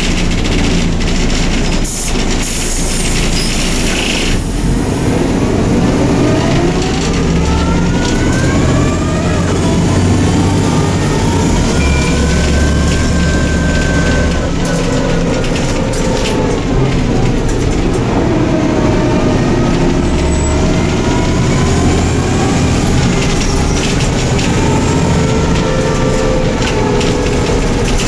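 Neoplan/ΕΛΒΟ N4007 city bus heard from inside the passenger cabin. There is a burst of compressed-air hiss about two seconds in. Then the engine and drivetrain whine rises and falls several times over a steady rumble as the bus accelerates and eases off.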